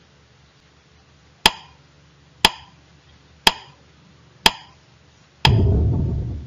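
Countdown timer sound effect: four sharp wooden ticks a second apart, then a loud low buzz lasting about a second as the count reaches zero.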